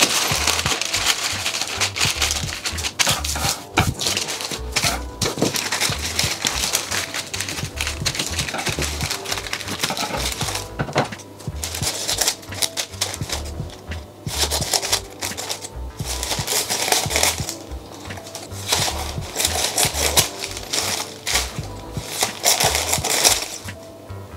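Baking parchment rustling and crinkling as it is folded and creased by hand, then snipped with scissors in irregular cuts, over background music.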